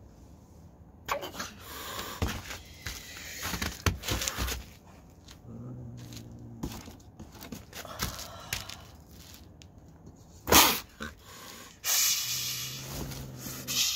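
A tortoiseshell cat shut in a wire cage trap growls low twice. Shortly after a sudden loud burst, near the end, it hisses with its mouth open over a growl: the defensive warning of a frightened, cornered cat. Scrapes and clicks in the first few seconds.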